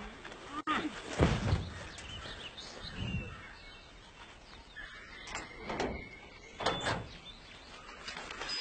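A few dull thumps and knocks, with birds chirping.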